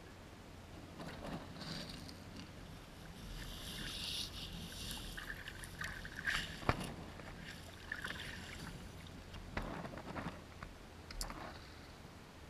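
Small splashes and sloshing of shallow pond water as a hand dips and paddles in it close to the microphone, with one sharp knock a little before seven seconds in.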